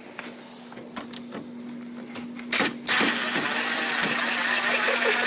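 A power drill runs steadily for about three seconds, starting about three seconds in, after a short knock.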